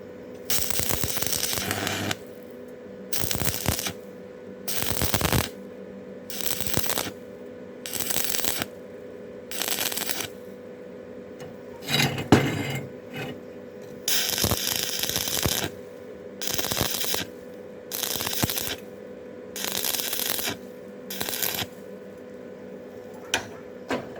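Stick-welding arc on thin steel angle iron with a 6013 electrode, crackling in short runs about a second long, struck and broken about a dozen times, as the thin metal is welded lightly in stitches. A faint steady hum sits underneath.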